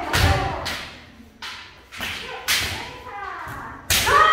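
Kendo sparring: bamboo shinai knocking and striking in sharp cracks, with bare-foot stamps on a hard floor and kiai shouts. A long, loud kiai begins near the end.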